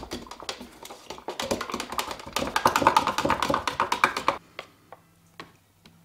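Paint being stirred in a small metal paint tin: quick clicking and scraping as the stirrer knocks against the can's walls, growing faster and louder, then stopping about four seconds in, leaving a few single taps.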